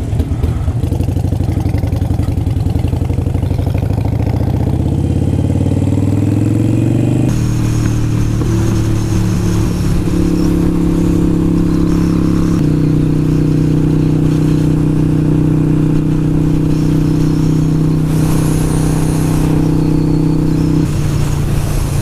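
Harley-Davidson V-twin motorcycle engine pulling away and accelerating, its pitch rising over the first seven seconds. After a sudden change about seven seconds in, it runs steadily at highway cruising speed.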